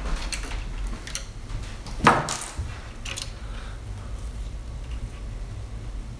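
A few short, sharp plastic clicks and snaps as orange packing clips and ties are worked off the Robo R2 3D printer's steel guide rods, the loudest about two seconds in.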